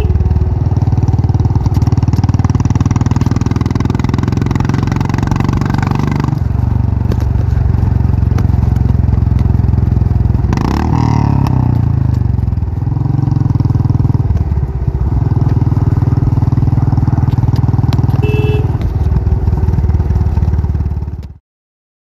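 Motorcycle engine running on the move, a steady low rumble that changes level in steps, with a brief rising-and-falling sweep about halfway through. It cuts off suddenly near the end.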